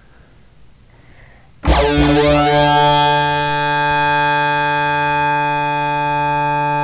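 Waldorf Blofeld synthesizer playing its factory patch Ultra Sync. After a quiet second and a half a held note comes in suddenly, its bright upper tones sweeping down in pitch over the first second before it sustains steadily.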